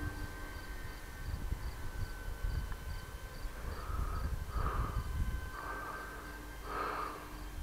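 Faint, steady whine of the electric motor of a radio-controlled FMS P-47 model warplane flying far overhead, with wind rumbling on the microphone.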